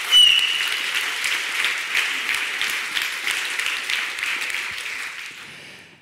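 Audience applauding, with a brief high whistle right at the start; the clapping dies away over the last second or so.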